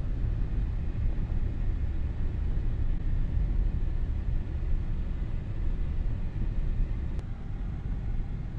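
Steady low rumble of a Honda car driving, heard from inside the cabin, with one brief click about seven seconds in.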